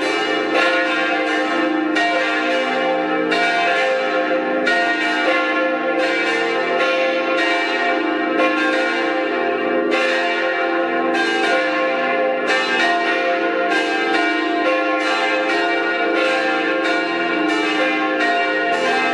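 Several church bells ringing together in a continuous peal, strokes of different pitches falling irregularly and overlapping, each tone ringing on under the next.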